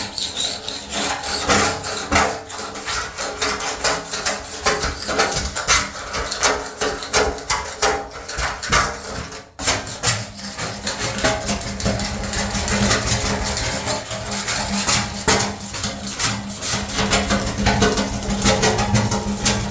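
Hand scraper rasping over a surface in quick, irregular strokes as a plumber scrapes it down. From about twelve seconds in, a steady low hum runs under the scraping.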